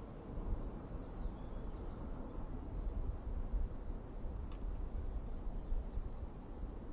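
Outdoor ambience: a steady low rumble with a few faint, high bird chirps about a second in and again around three seconds in.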